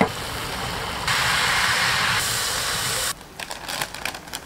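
Hot oily chilli sauce sizzling with a steady hiss as it is poured over fish in a paper-lined tray, growing louder about a second in. A little after three seconds the hiss stops and stiff paper crinkles as it is handled and folded.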